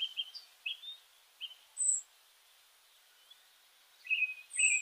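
Small birds chirping in short, scattered calls. The loudest are two high, sharp, downward-sliding chirps, one about two seconds in and one near the end, over a faint hiss.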